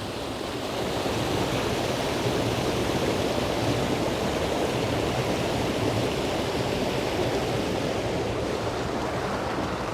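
Creek water rushing steadily down a small rock chute, a constant full splashing rush that rises slightly about a second in.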